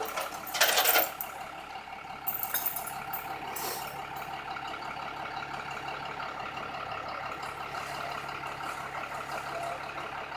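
A motor vehicle's engine running steadily, with a few brief patches of hiss in the first few seconds.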